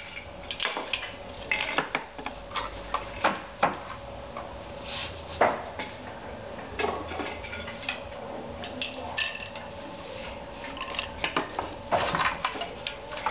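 Wooden handloom in use: irregular wooden clacks and knocks as the beater is pulled against the cloth and the heddles and treadles shift. A faint steady hum runs underneath.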